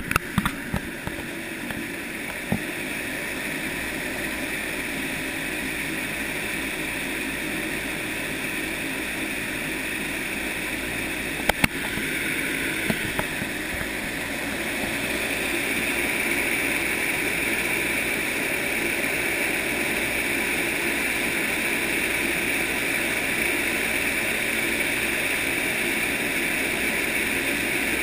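Outdoor vertical wind tunnel's fan turbine blowing a steady rush of air, which grows louder about halfway through as the fan speeds up. A few sharp knocks near the start and about eleven seconds in.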